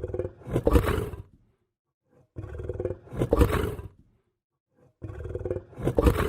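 Lion growling three times, each growl swelling to a loud peak and lasting about a second and a half, with short silent pauses between.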